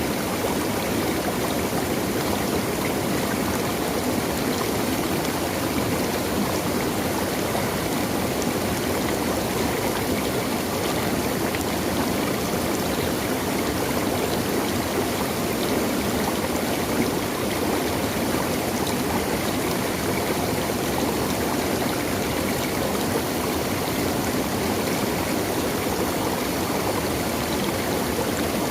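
A stream flowing, a steady rushing and gurgling of water.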